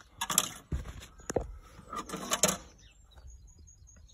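Handling noise while a ring spanner is fetched: two bursts of rustling with a few dull thumps and clicks between them.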